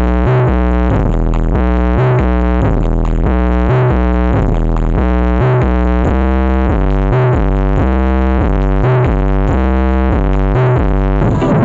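Loud electronic dance music with a heavy, repeating bass line and synthesizer notes, played through a large sound system at full volume.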